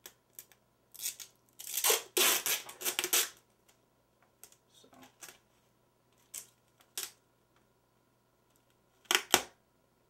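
Clear packing tape being pulled off its roll in short ripping pulls, the longest and loudest lasting over a second about two seconds in, with another short rip near the end.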